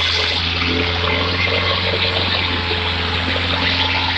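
Farm tractor's diesel engine running steadily under load with a constant low drone as it pulls a loaded trolley through mud.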